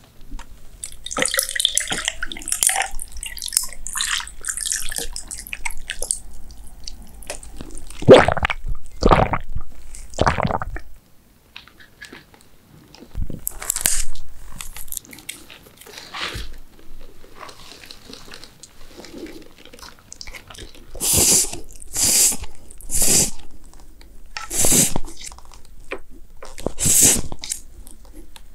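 Close-miked eating of bibim noodles: a run of wet slurps, bites and chews of the sauced cold noodles and crunchy toppings, each coming as a separate burst.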